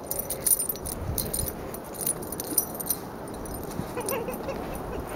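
A person and a Yorkshire terrier tramping through deep snow: soft, irregular steps in the snow, with light metallic jingling of the leash and tags in the first second or so.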